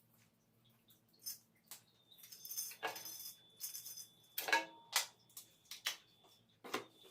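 Irregular light clicks, taps and short rattles, as of parts or tools being handled, with a faint steady high whine starting about two seconds in.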